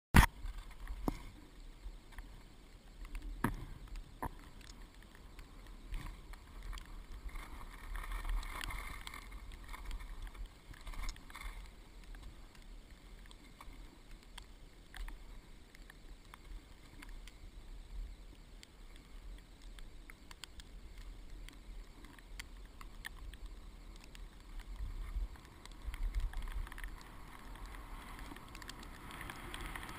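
Skiing on snow heard through a GoPro Hero2 helmet camera's housing: wind rumbling on the case with a hiss and scrape of skis on snow, and a few sharp knocks in the first four seconds.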